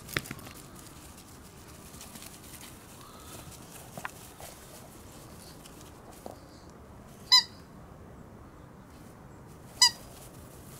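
Two short, high squeaks from a squeaky toy ball as the puppy bites and steps on it, about two and a half seconds apart.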